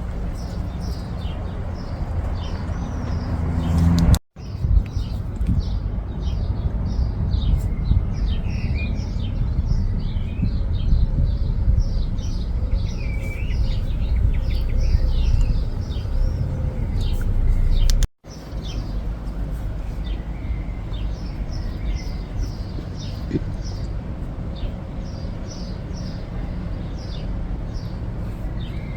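Many small birds chirping at once, a dense run of short, quick falling chirps, over a steady low rumble. The whole sound cuts out abruptly for an instant twice, about four seconds in and about eighteen seconds in.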